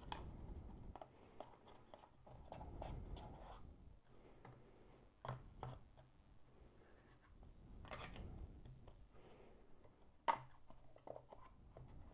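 Cardboard packaging handled by hand: the paperboard tray and sleeve of a small mouse box rubbing and sliding against each other, with a few light taps, the sharpest about ten seconds in.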